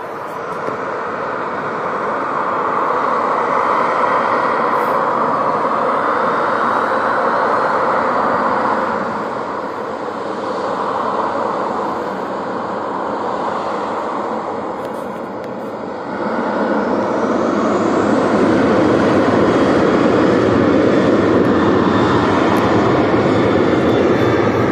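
Jet airliner engines running, a steady rumble with a high whine over it. About sixteen seconds in the sound jumps louder and the whine rises in pitch as the engines spool up.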